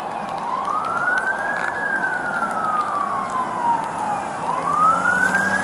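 Emergency vehicle siren on wail: the pitch rises fairly quickly, falls slowly, then starts rising again near the end, over a steady background rush.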